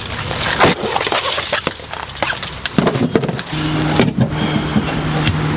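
Irregular knocking, rattling and scraping as a heavy old walk-behind lawn mower is hauled along. A steady low hum joins in about three and a half seconds in.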